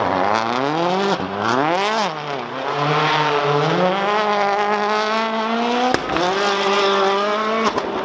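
Citroën DS3 WRC's turbocharged 1.6-litre four-cylinder engine revving hard with the wheels spinning: the revs swing up and down twice in the first two seconds, then climb slowly, with a sharp crack about six seconds in and a sudden drop near the end. Tyres squeal under the wheelspin.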